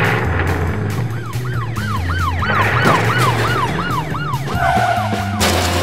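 Police siren wailing in a fast rising-and-falling yelp, about three cycles a second, over background music. It settles briefly into a steady tone, then a short burst of noise comes near the end.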